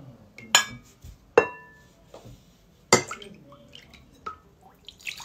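Metal ladle clinking against a ceramic bowl and cup: three sharp clinks, the second ringing on briefly, then lighter taps. Liquid drips from the ladle between them.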